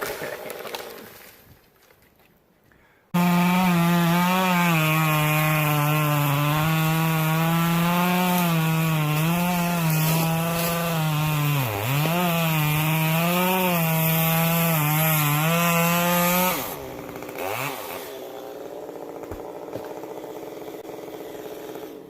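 Stihl MS 192T top-handle two-stroke chainsaw cutting wood at high revs. It starts abruptly about three seconds in, its pitch wavering under load in the cut with a brief dip midway. Near the end it comes off the throttle with a falling pitch.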